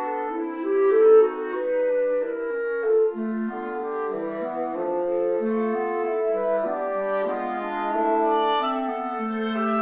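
Instrumental background music: a slow passage of overlapping held notes in a wind-ensemble sound, with no beat.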